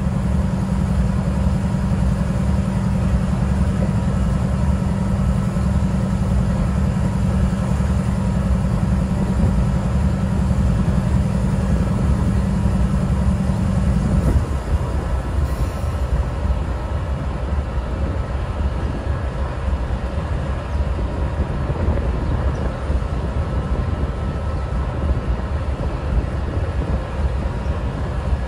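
GE Dash 9-44CW diesel-electric locomotive idling at a standstill: a steady, deep rumble. About halfway through, a steady hum within it cuts out suddenly, followed about a second later by a short sharp sound.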